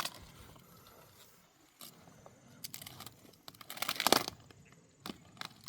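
Leaves crunching, rustling and tearing as plants are handled: a few short bursts, loudest about four seconds in, with a sharp click at the start.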